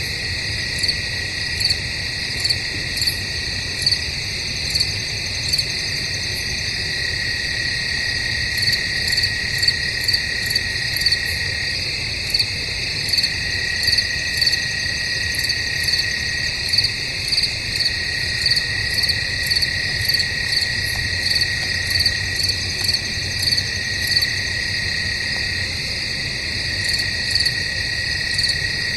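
Crickets chirping in a forest at night: a steady high trill under louder chirps that repeat a little more than once a second.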